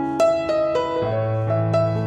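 Background music: piano melody with notes struck about every quarter second over a held bass note.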